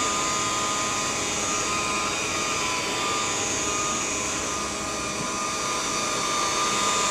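Electrolux Epic 6500 canister vacuum with its L-shaped power head running steadily, a whining motor hum with a hiss of airflow, easing slightly about five seconds in.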